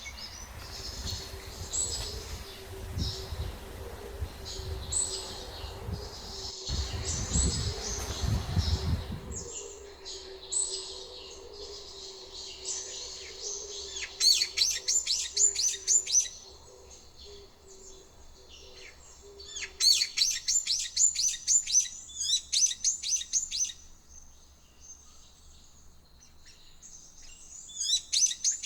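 Small songbirds chirping, with several bursts of fast trilled notes about halfway in and near the end. A low rumble, like wind on the microphone, lies under the first third and cuts off suddenly.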